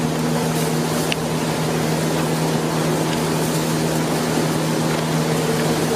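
A steady, unchanging machine drone with a low hum.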